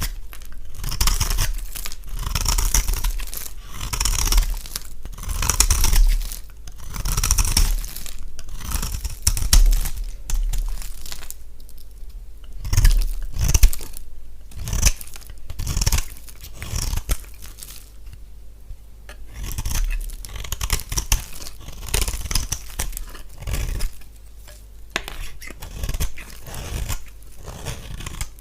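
Dry bar soap being cut, a run of crunchy, scraping cuts about one every second or two. The cuts are louder in the first half and come quicker and lighter later on.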